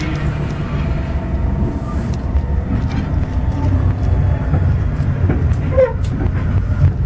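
Moving train heard from inside a passenger car: a steady low rumble of the ride, with scattered clicks and knocks and a brief squeak about six seconds in.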